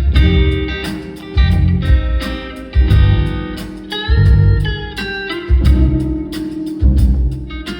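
Live band playing a chill jazz-fusion guitar instrumental: an electric guitar melody with bent, gliding notes over bass and drums.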